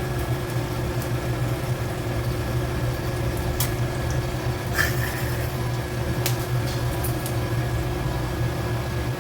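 A steady low hum from a small motor, with a few short, sharp clicks.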